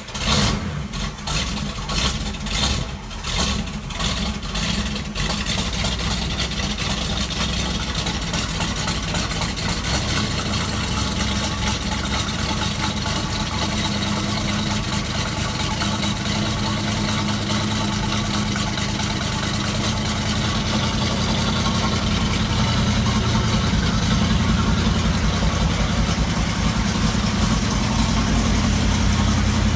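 1970 Dodge Super Bee's V8 engine firing unevenly for about the first five seconds, then settling into a steady idle that grows a little louder in the second half.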